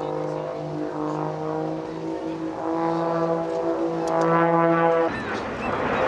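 Brass band playing held, slowly changing chords. About five seconds in it cuts off abruptly and the rushing noise of jet aircraft takes over.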